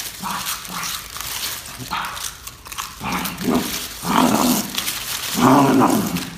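Crunchy potato chips being bitten and chewed in big mouthfuls, with crackling crunches throughout. A man's wordless vocal noises come in over the chewing from about halfway through and are loudest near the end.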